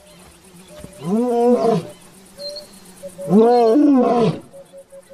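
Male lion roaring: two long roars about two seconds apart, each rising and then falling in pitch.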